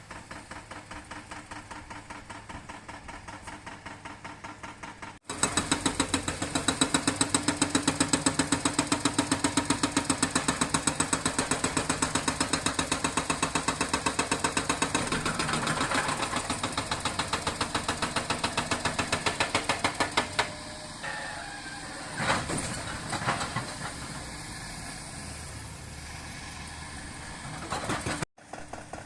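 Engine of road-construction machinery running with a steady, even pulsing beat. It jumps much louder at a sudden cut about five seconds in and drops back a little after twenty seconds, where a few sharper knocks stand out.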